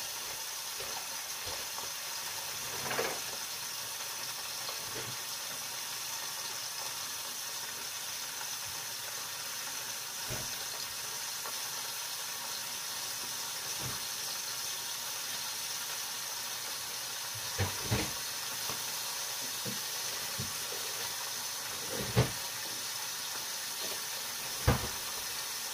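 Lidded pot of broth simmering on the stove: a steady hiss, with a few short knocks scattered through.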